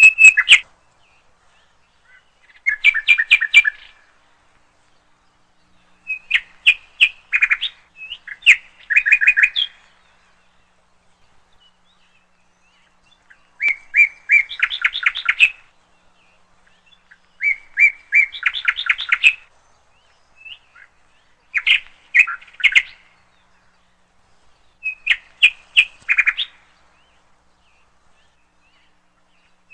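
A songbird singing: short phrases of rapid repeated chirps, one every three to four seconds, with silence between.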